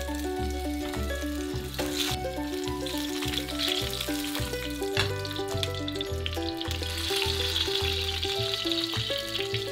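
Boiled potatoes sizzling as they fry in hot oil in a frying pan, with a sharp tap about two seconds in and another about five seconds in, over background music with a steady pulsing bass.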